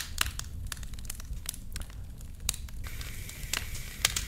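Recorded campfire crackling: irregular sharp pops and snaps over a low rumble. About three seconds in, a fireplace recording joins it and adds a steady hiss.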